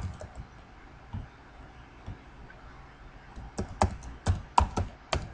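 Typing on a computer keyboard: a single click at the start, a few faint taps, then a quick run of keystrokes at about four a second over the last two seconds.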